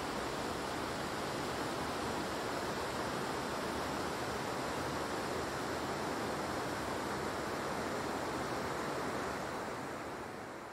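Steady rushing noise, even and without distinct events, that fades out near the end.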